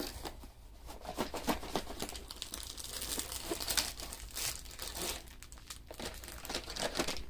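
Plastic packaging and a rolled diamond-painting canvas crinkling and rustling as they are handled and unwrapped, in irregular crackles with a louder stretch around the middle.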